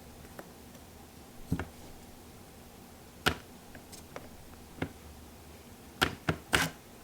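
Scattered sharp clicks and taps a second or two apart, with a quick cluster of them near the end, from hands handling a folding phone and its plastic installation tray while the screen is wiped clean.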